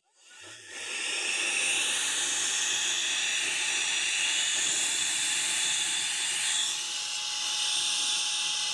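Handheld Fresmoo cordless electric air duster (USB compressed-air blower) spinning up about a second in, then running steadily with a high-pitched whine and rushing air as it blows dust out of a 3D printer's extruder.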